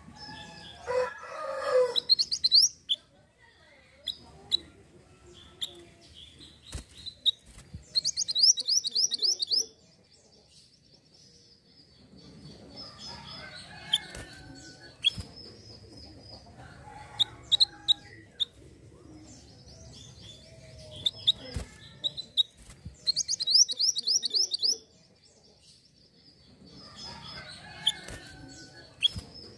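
A mantenan gunung, a small black-and-orange songbird, singing in a cage: quick trills of high repeated notes come in three short bursts, with single chirps between them. A rooster crows in the background about a second in.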